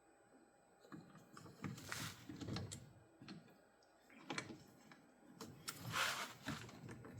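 Irregular handling noises: scattered clicks, knocks and short rustling scrapes, the loudest a brief hissing scrape near the end.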